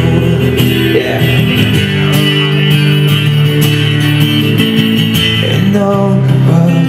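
A street busker playing an amplified guitar through a small portable amp, with long held notes and chords.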